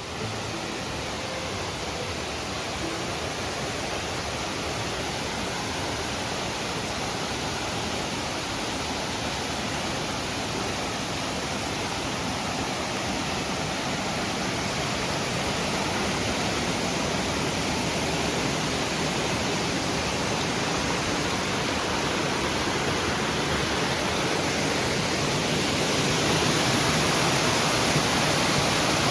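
Steady rushing noise of flowing water, slowly growing louder toward the end.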